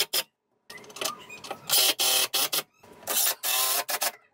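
Cordless drill/driver driving screws into a wooden 2x4 header overhead, running in about four short bursts of half a second to a second each, with brief pauses between them.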